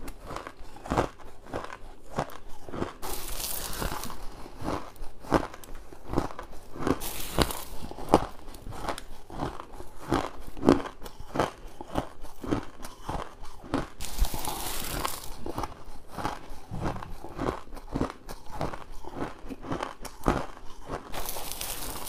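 Close-miked crunching bites and chewing of crushed ice, a rapid run of crisp crunches about two or three a second. Four brief spells of high, rustling hiss break in among them.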